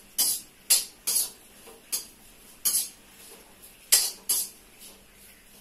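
Metal ladle scraping and stirring food in a metal wok: about eight short, sharp scrapes at an uneven pace, with a pause of about a second near the middle.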